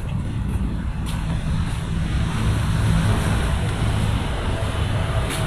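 Steady low rumble of city traffic from nearby roads, growing a little louder after about two seconds, with a few light footstep ticks near the start.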